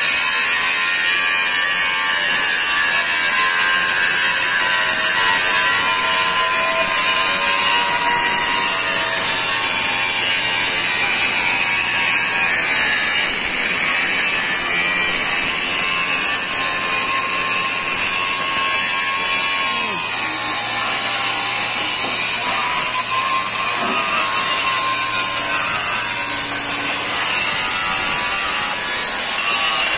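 Electric angle grinder running and grinding steel: a loud, steady high whine. Its pitch sags briefly a little past the middle as the disc is pressed into the work.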